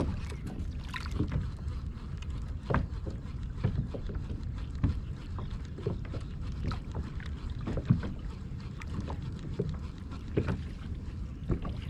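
Water lapping against a kayak's hull, with a low rumble of wind on the microphone and scattered, irregular light knocks and clicks.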